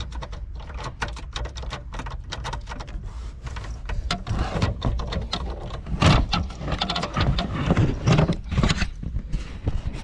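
Irregular clicks, taps and rubbing from hands working at an opened steering column and handling the camera, busier and louder from about four seconds in.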